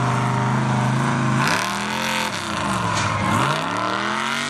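Mud truck engine holding a steady note, then revving hard from about a second and a half in. The pitch swings up and down, drops lowest around three seconds in, and climbs again near the end as the truck is driven over the dirt jumps.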